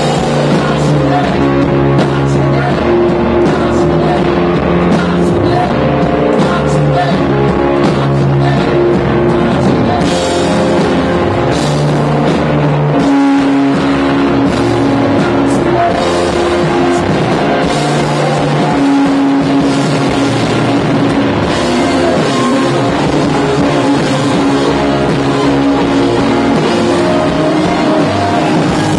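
Live rock band playing loudly, with electric guitars and drums.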